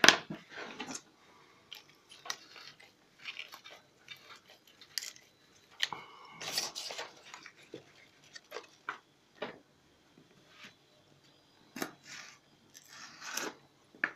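Fresh green beans being cut with a knife on a plastic cutting board: irregular crisp snaps of the pods and taps of the blade on the board, with a sharp click at the very start.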